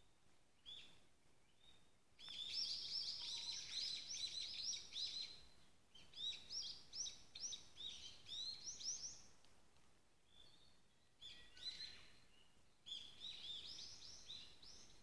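Forest songbirds singing: quick runs of high, arching notes in about four bursts of one to three seconds, with short pauses between.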